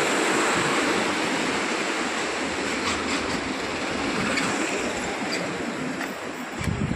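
Water rushing through a river barrage's open sluice gates: a loud, steady roar of noise that eases slightly near the end.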